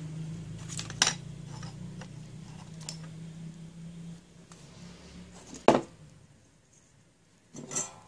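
Hand tools and a small circuit board handled on a workbench: a few light metallic clicks and clinks, then one sharp knock a little past halfway and a brief clatter near the end. A low steady hum underneath fades out after about four seconds.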